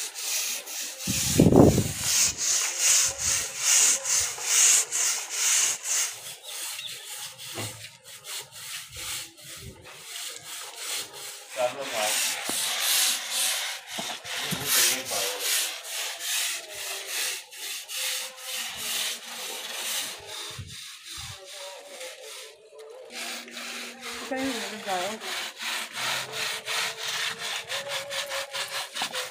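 Hand scrub brush scrubbed back and forth over the woven cord webbing and frame of a charpai (string cot), a rapid rhythmic rasping of bristles, stroke after stroke. A dull thump about a second and a half in.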